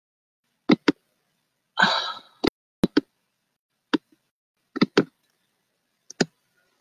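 A string of sharp clicks and taps on a computer, close to the microphone: about ten separate strikes scattered irregularly, some in quick pairs, with a brief rustle about two seconds in.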